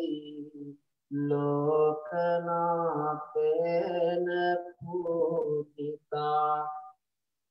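A Buddhist monk chanting in a drawn-out, melodic male voice, in phrases broken by short pauses.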